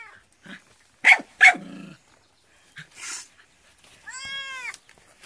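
A small puppy barks twice in quick succession, sharp and high. A short hiss follows, then a long meow that rises and falls: the fake cat sound the puppy is barking at.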